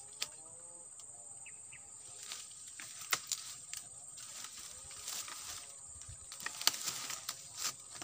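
Dry sugarcane leaves and stalks rustling and crackling as a bird-net pole is pushed up through them, with sharper snaps bunched in the second half. A steady high-pitched insect drone sits underneath.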